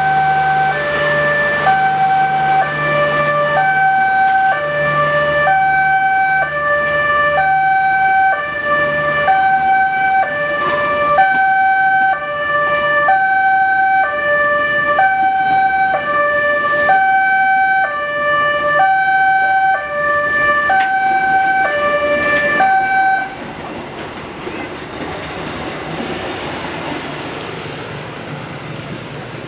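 Railway level-crossing alarm sounding a two-tone warning that switches between a higher and a lower pitch about once a second, over the rumble of passenger carriages passing. The alarm cuts off about 23 seconds in, leaving the quieter rumble of the train.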